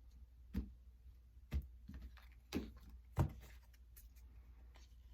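Cards being drawn and set down on a table: four short taps about a second apart, with a few fainter ticks, over a low steady hum.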